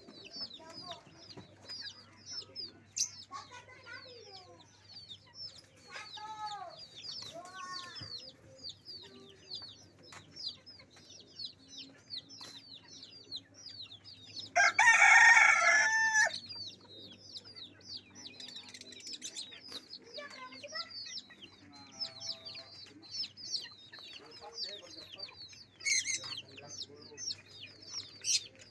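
A rooster crows once about halfway through, the loudest sound, and clucks a few times. Under it, small birds chirp constantly in a dense high twittering.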